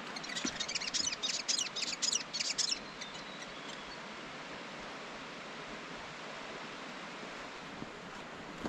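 A songbird singing a quick run of short, high chirping notes for the first three seconds or so, over a steady rushing hiss that carries on after the song stops.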